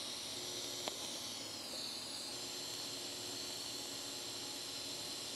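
TIG welding arc hissing steadily as the worn teeth of a hardened steel rack are built up with filler wire. A single faint click about a second in.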